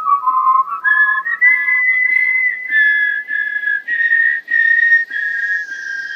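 Whistled melody in two-part harmony: held notes, two at a time, that step up in pitch about a second in.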